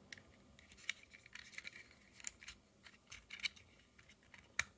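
Faint small clicks and scrapes of hard plastic and metal as a Kato metal wheelset is pressed into the plastic bogie of an N-gauge model train car. A sharper click comes just before the end.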